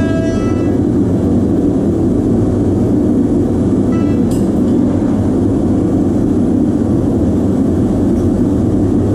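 Small metal-melting furnace running hot with a loud, steady rushing noise that does not let up, with one short click about four seconds in.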